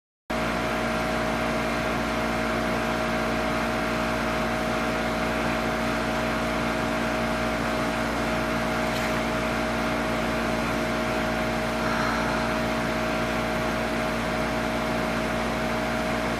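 Steady loud hiss with a constant hum, the background noise of an amplified room recording. A faint click comes about nine seconds in, and a faint short sound about twelve seconds in, which paranormal investigators present as a ghostly sigh.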